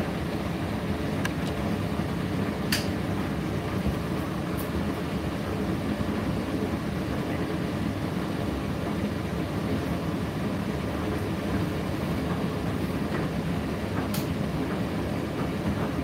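Indesit IDC8T3 condenser tumble dryer running mid-cycle: a steady, mostly low sound of the motor, fan and turning drum, with a few light clicks.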